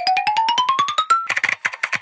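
Cartoon sound effect: rapid typing-like clicks, about a dozen a second, with a run of short beeps stepping steadily up in pitch over the first second or so.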